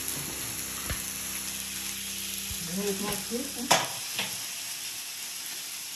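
Fish fillets sizzling steadily on a hot electric raclette grill plate, with a few short clicks, the sharpest about halfway through.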